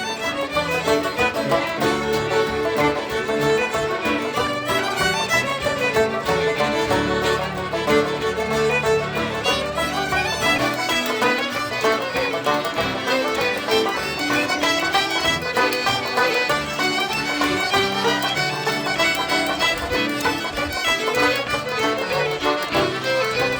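Background music: a Celtic folk tune led by fiddle with acoustic accompaniment, playing steadily throughout.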